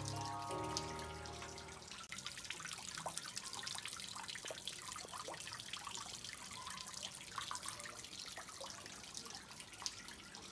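Small garden-pond waterfall splashing and trickling into the pond, full of tiny drips and splashes. Background music with held notes fades out in the first two seconds.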